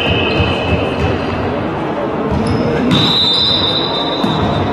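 Volleyball being played in a sports hall: thuds of the ball and players' feet on the hall floor, with voices. About three seconds in, a long, steady, high whistle starts sharply.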